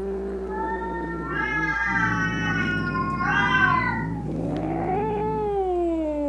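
Angry domestic cat caterwauling: long, drawn-out yowls that rise and waver, the last one sliding down in a long falling wail.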